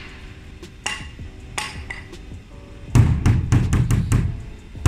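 Steel hammer striking a thermoformed ABS kayak hull, hollow knocks from the hull: two single blows, then about three seconds in a fast run of about seven heavy blows, about five a second. The blows are meant to break a crack in the hull for a repair.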